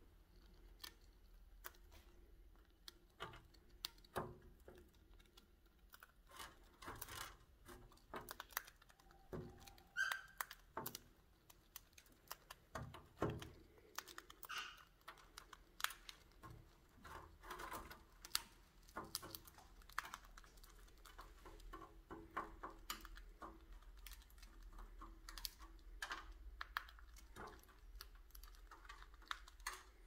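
Cockatiels pecking at a seed stick and the loose seed under it: an irregular run of small, sharp beak clicks and seed-cracking taps.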